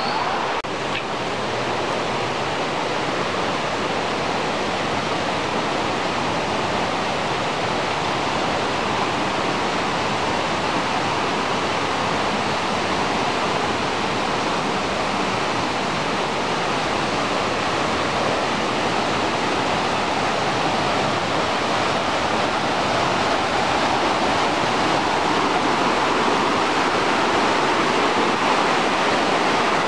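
Rocky mountain stream rushing over boulders in white-water rapids: a steady, unbroken rush of water that grows a little louder over the last few seconds.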